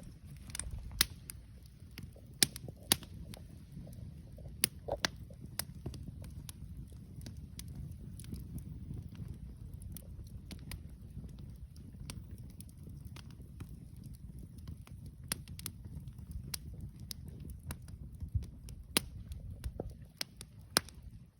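Campfire burning: irregular sharp crackles and pops, a few of them loud snaps, over a steady low rumble.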